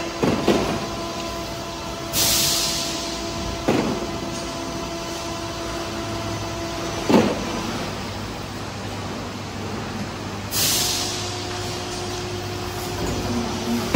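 PET preform injection moulding machines running, a steady machine hum with held tones. There are three short clunks about three and a half seconds apart, and two loud hisses, about two seconds in and again about ten seconds in.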